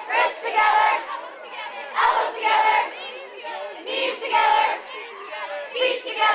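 A large crowd of children and adults chanting a camp song together in loud bursts about every two seconds.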